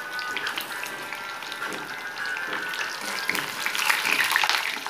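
Eggplant slices frying in hot oil in a steel pan, a steady sizzle with fine crackles and pops of spattering oil. The crackling grows louder about three and a half seconds in.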